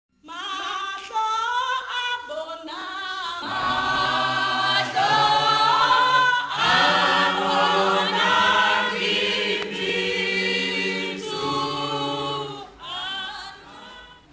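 A cappella choir singing in harmony, with the fuller part coming in about three seconds in.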